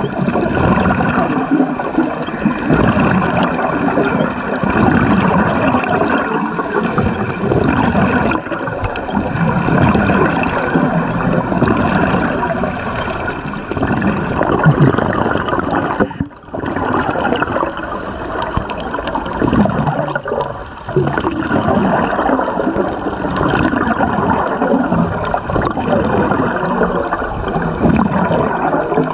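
Steady bubbling, gurgling water noise heard through an underwater camera, with the bubbles of scuba divers' exhaled breath. It briefly drops away about sixteen seconds in.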